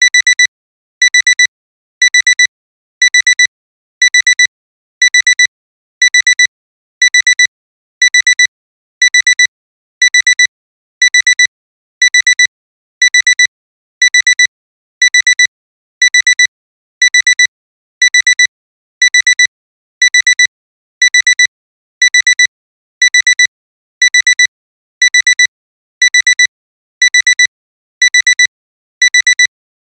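Digital alarm clock alarm beeping: a high electronic beep in quick clusters of rapid beeps, repeating about once a second. It signals that the timer has run out.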